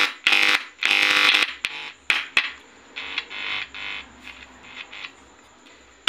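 Loudspeaker on a 6283 IC amplifier board wired in bridge mode, buzzing with mains hum as a screwdriver tip touches the amplifier's input. This is a hum test showing the bridged amplifier drives the speaker. Two loud buzzes with clicks come in the first second and a half, then a weaker buzz that dies away.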